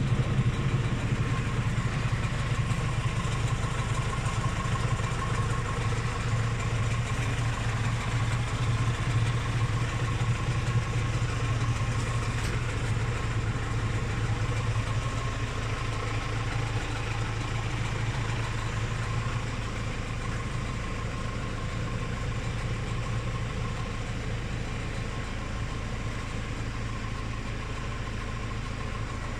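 Claas Rollant 255 RotoCut roller round baler spun up on a tractor's power take-off. A steady engine drone with the baler's drive and rollers turning, easing slightly in level over the second half.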